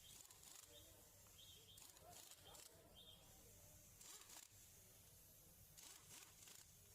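Near silence: faint background tone with a few faint, short, high chirps in the first half and some faint clicks.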